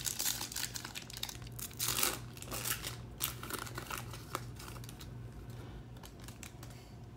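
Foil wrapper of a Topps Chrome trading-card pack being torn open and crinkled by hand. The dense crackling is loudest in the first few seconds, then thins to lighter crinkles.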